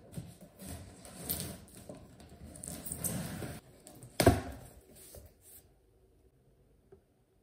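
Objects being handled, with light knocks and rustles and one sharp knock about four seconds in, stopping about two-thirds of the way through.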